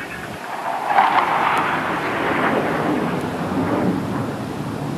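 Military jet passing overhead: a loud roar that swells suddenly about a second in, then falls in pitch and fades slowly as it goes by.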